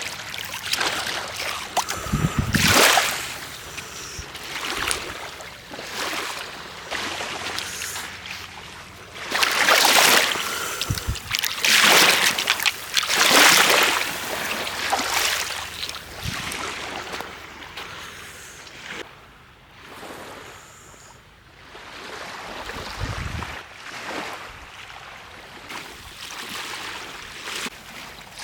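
Small waves washing onto the river shore in irregular surges, with a few gusts of wind buffeting the microphone.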